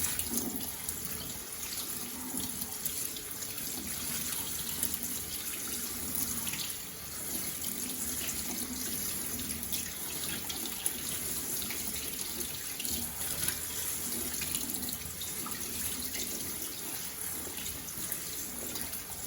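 Tap water running steadily into a kitchen sink as oats are rinsed, with faint small splashes.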